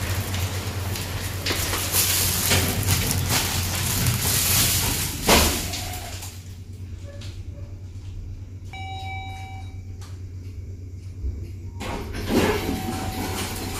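Lift doors sliding shut, ending in a sharp knock about five seconds in, then the quieter ride inside the stainless-steel car with a short electronic chime around nine seconds, and the doors sliding open again near the end.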